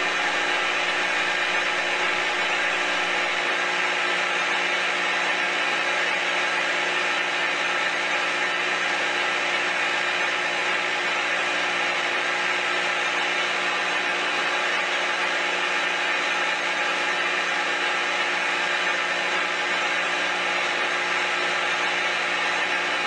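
A steady, unchanging buzzing drone with a hiss laid over it, holding one level with no beat or breaks.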